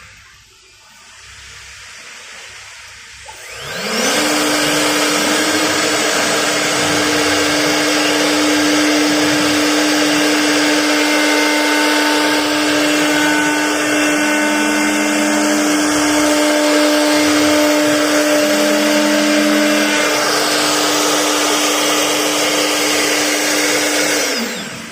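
CNC router spindle spinning up about four seconds in, then running with a steady high whine over a dense rushing noise, and winding down just before the end.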